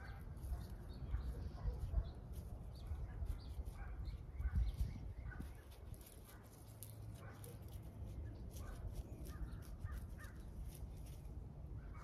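Gloved hands working onion sets into damp garden soil: soft rustling and small clicks over a low rumble. Birds call now and then in the background.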